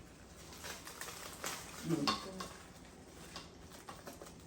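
People eating fufu and egusi soup, with light clinks of bowls and dishes and soft sounds of handling the food. A brief vocal sound comes about two seconds in.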